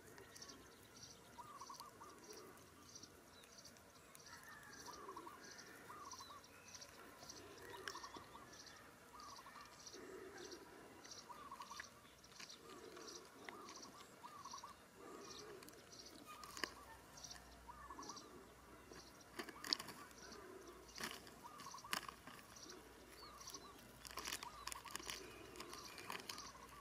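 Faint outdoor bird calls: a high note repeating about twice a second over lower, repeated calls. From about halfway through, a few sharp clicks stand out, the loudest of the sounds.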